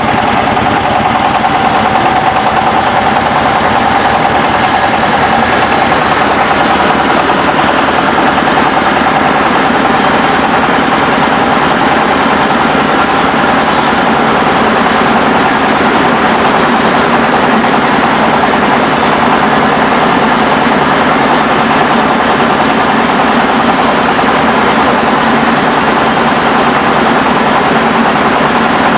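Engine-driven mobile rice mill running steadily at working speed, a loud continuous machine noise with a fast even pulse and a steady hum.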